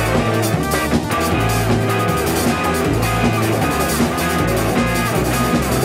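Live rock band playing an instrumental passage: electric guitar over drum kit, bass guitar and keyboard, going steadily with no vocals.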